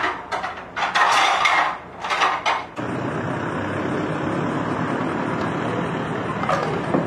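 Several loud, rough clattering bursts over the first three seconds, then an abrupt change to a steady, even background noise like outdoor street ambience.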